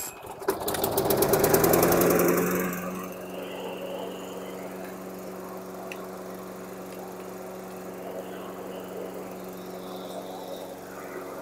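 Briggs & Stratton 725-series mower engine just pull-started: it catches, runs up fast and loud for about two seconds, then settles into a steady run.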